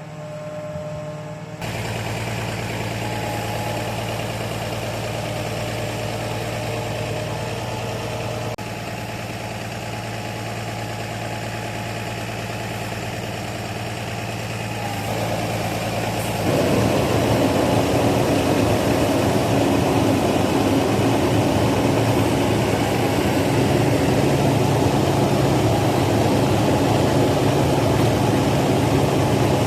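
Engine of heavy tree-removal machinery running steadily, then getting louder and rougher about halfway through and staying there, as it is throttled up.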